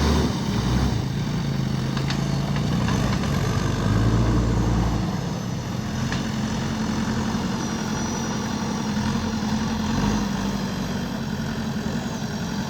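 JCB backhoe loader's diesel engine running steadily, with a few faint clicks.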